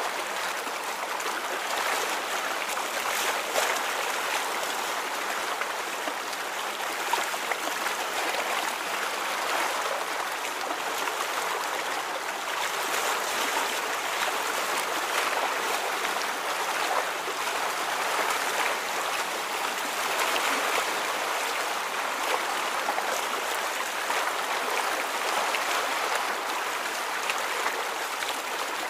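Rippling, trickling water: a steady, even wash with small splashes and ticks scattered through it.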